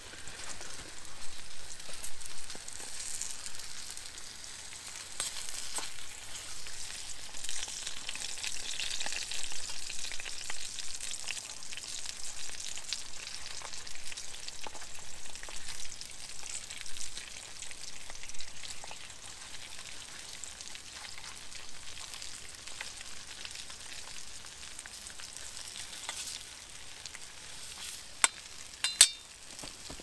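Potatoes frying and sizzling in a pan over a campfire, with a metal spatula scraping and turning them now and then. Two sharp clicks near the end are the loudest sounds.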